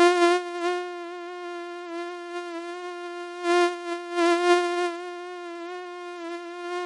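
Mosquito whining in flight: a steady high buzzing hum with a slight wobble in pitch, swelling louder twice, near the start and again about halfway through.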